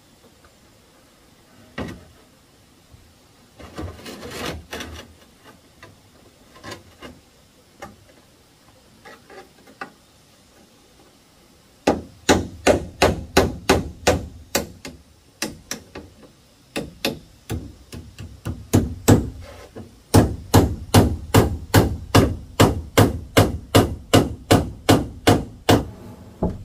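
A hammer driving nails through corrugated fibre-cement roofing sheets into a wooden log purlin. For about the first half there are only a few scattered taps; then comes a fast, even run of strikes, about three a second, broken once by a short pause.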